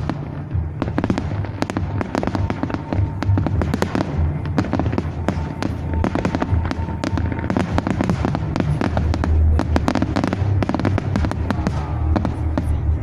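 Japanese fireworks display: a dense, continuous barrage of crackling reports and bangs, many per second, over a low rolling rumble.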